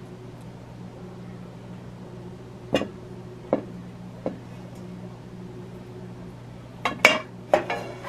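Light kitchen-utensil clatter: three separate taps, then near the end a quick cluster of louder clinks with a short ring, as a silicone spatula and hands knock against a stainless steel mixing bowl and a foil baking pan. A steady low hum runs underneath.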